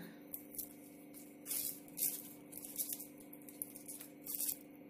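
Spatula stirring boiled green peas and sliced onions in a pressure cooker, giving short, irregular scraping and rattling strokes as the peas are sautéed to heat through. A faint steady hum runs underneath.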